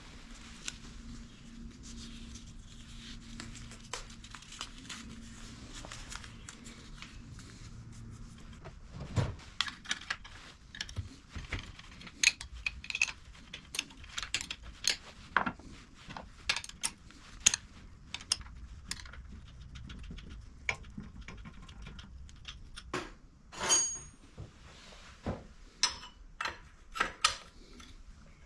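Hand tools and small metal parts being handled during motorcycle rear-suspension work, clicking, clinking and tapping irregularly. A faint steady hum runs through the first third, and the clinks come thicker after that.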